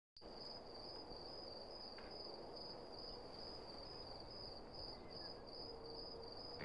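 Faint night ambience of crickets chirping, a steady high pulse about three times a second over a low hiss.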